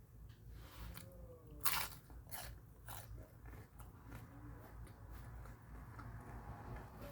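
Close-up mouth sounds of a person eating crunchy food: a loud crisp bite about two seconds in, followed by several more crunches and then steady chewing.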